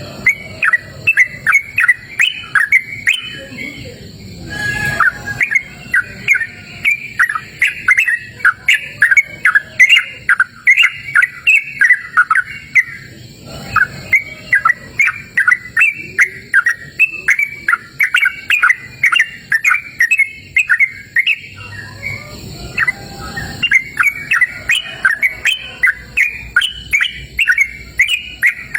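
Yellow-vented bulbul (trucukan) singing almost without a break: long rapid runs of short chirping notes, pausing briefly about four, thirteen and twenty-two seconds in. A faint steady high tone sits beneath.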